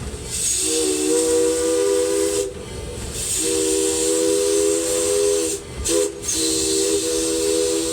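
Steam locomotive whistle, D&RGW No. 491's, sounding a chord of three notes in the long, long, short, long pattern of a grade-crossing signal, over a steady hiss of steam.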